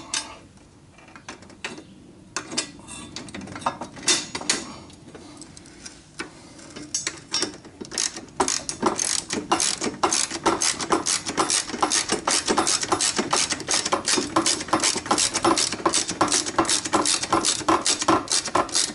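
Socket ratchet wrench clicking as a bolt is turned. A few scattered clicks come first, then from about eight seconds in a steady run of quick clicks.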